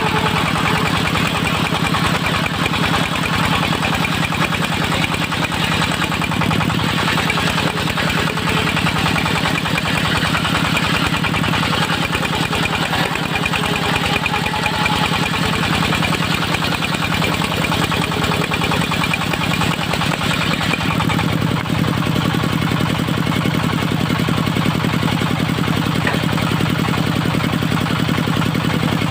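Engine of a portable circular-saw sawmill running steadily, its note changing slightly about twenty seconds in.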